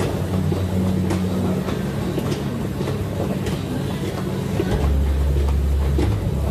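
Stepmill stair-climber machines running at a fast climbing pace of about 110 steps per minute: a steady low mechanical hum with repeated clicks and clunks from the revolving steps and footfalls. About five seconds in, the hum deepens and gets a little louder.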